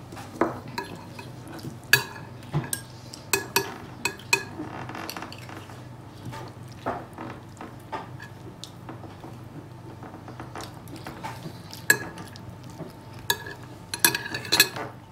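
Metal spoons clinking and scraping against a glazed ceramic couscous platter as food is scooped up: scattered clinks, with a quick run of them near the end.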